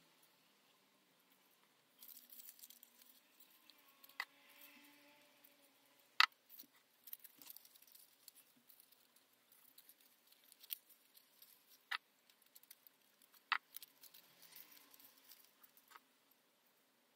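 Faint rustling and scratching of folded copy-paper pieces being handled and glued with a toothpick, with a handful of sharp little ticks spread through.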